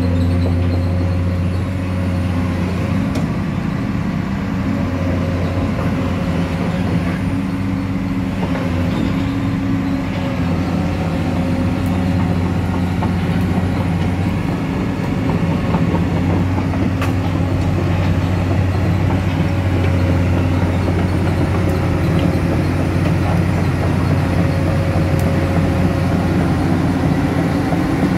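Komatsu PC200 hydraulic excavator's diesel engine idling steadily.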